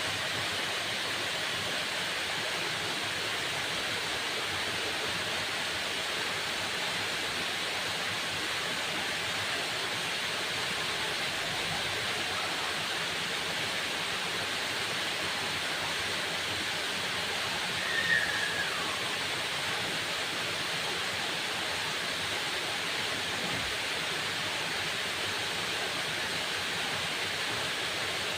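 Waterfall, falling water rushing in a steady, even roar of noise. About two-thirds of the way through, a single short chirp falls in pitch over the water.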